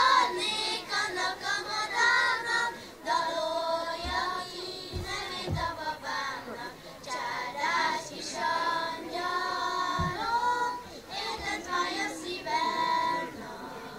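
A small group of girls singing a Hungarian folk song together. The singing stops near the end.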